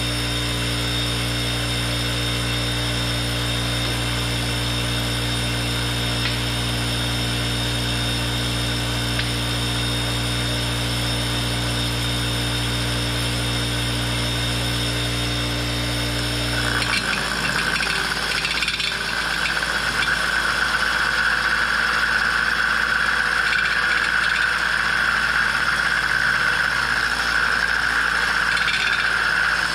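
Bench grinder running with a steady hum. A little past halfway the sound changes to a steady high whine with a grinding rasp as a carbide Green Teeth stump-grinder tooth is held against the green grinding wheel to sharpen it.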